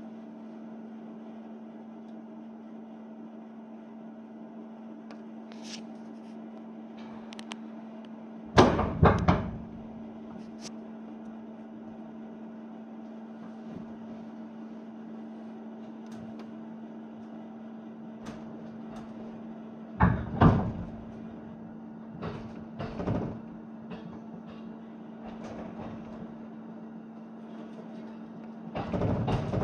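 Steady hum of a train carriage's onboard equipment, with a low, even pitch. It is broken by loud, irregular knocks and clunks: a cluster about eight to nine seconds in, the loudest; another around twenty seconds; two smaller ones just after that; and more near the end.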